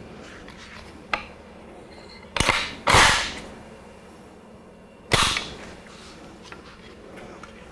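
Sharp metal clacks from a Romanian PSL/FPK rifle's action and magazine being worked: a faint click about a second in, a double clack, a longer, louder clatter about three seconds in, and one more sharp clack about five seconds in.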